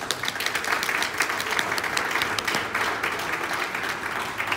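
Audience applauding, a dense spread of clapping that breaks out at once and keeps on steadily.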